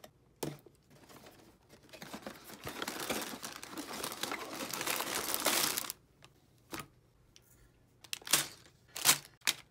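A cardboard LEGO box being opened by hand: a long rustling tear of the cardboard that builds up and stops suddenly, followed by a few sharp knocks near the end as contents are set down on the wooden table.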